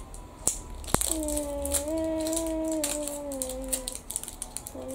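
Plastic surprise egg clicking open and its foil-wrapped toy crinkling, with a child humming one long note from about a second in until nearly the end.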